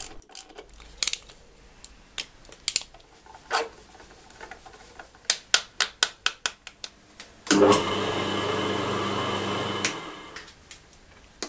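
Screwdriver clicks and small plastic knocks as terminal screws are tightened and the cover is pressed onto a plastic electrical box. Then an electric motor starts suddenly and runs steadily for about three seconds before stopping.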